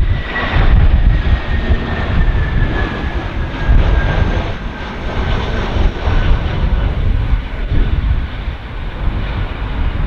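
Jet airliner engines of a landing aircraft: a whine that slowly falls in pitch over a loud, continuous low rumble.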